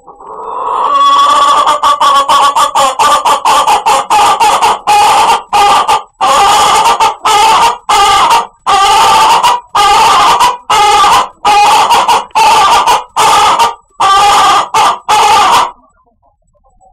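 Chicken calling loudly over and over, in a long run of short repeated calls about two a second, stopping near the end.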